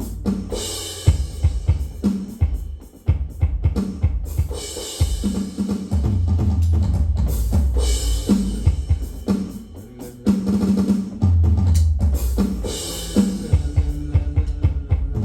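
A drum beat with kick, snare and cymbals over sustained bass notes, in a pattern that repeats about every four seconds.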